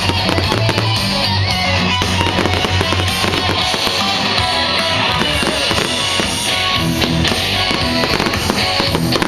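Fireworks bursting over loud music: many sharp bangs and crackles against sustained musical notes and a strong bass line.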